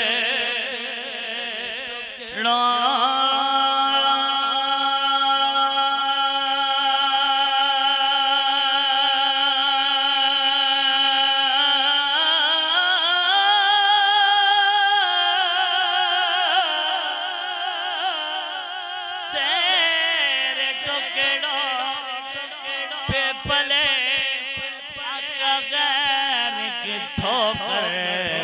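A man's solo voice singing an Urdu naat-style devotional verse, drawn out into long held notes with a slight waver. The pitch steps up about twelve seconds in, and the last third turns into quicker ornamented runs.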